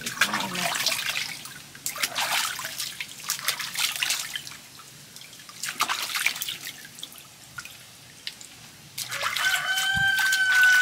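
Water splashing and trickling in irregular bursts as an animal is washed down. Near the end a rooster crows with one long, steady call.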